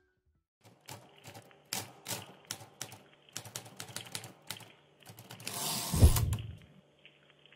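Keyboard typing sound effect: a run of irregular key clicks, then a whoosh that swells into a low thud about six seconds in.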